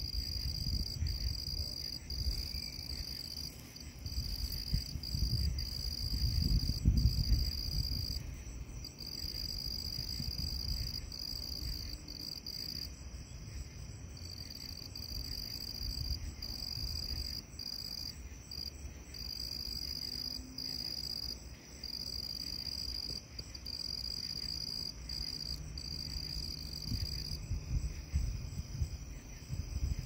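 Night insects, crickets, trilling steadily at a high pitch with brief breaks, over a low, uneven rumble that swells about a quarter of the way in.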